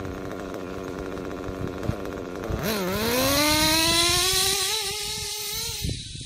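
Kyosho KE25 nitro engine in an RC truggy idling, then opened up at about three-quarter throttle a few seconds in: the note dips, then climbs steadily in pitch as the truggy speeds away, and drops off sharply near the end. A three-quarter-throttle pass on a warmed-up engine during heat-cycle break-in.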